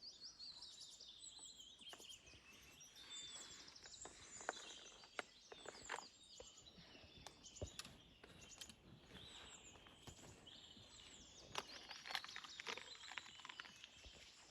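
Faint birdsong: many short chirps and trills from small birds, with a few soft clicks scattered through.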